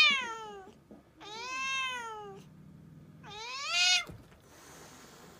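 Tabby cat giving angry, drawn-out yowls at another cat, three times. Each call rises and then falls in pitch. The last is cut off abruptly about four seconds in, with a brief click as it lashes out with a paw.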